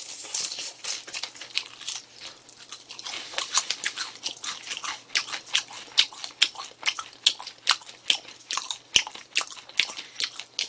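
A person chewing deep-fried food, with irregular sharp crunches several times a second that grow more frequent after the first few seconds.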